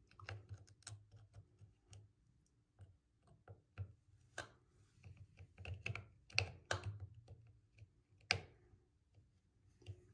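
Faint, irregular clicks and taps of a plastic faucet aerator key working against a Moen faucet's recessed aerator insert as it is fitted and turned by hand, with a few louder clicks in the second half.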